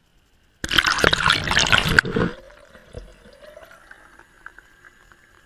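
Water rushing and splashing loudly into a bowl for about a second and a half, then stopping abruptly and trailing off into scattered drips and small splashes.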